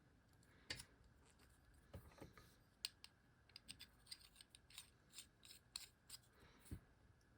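Faint scattered clicks and short scrapes of small metal utensil segments being handled and screwed together.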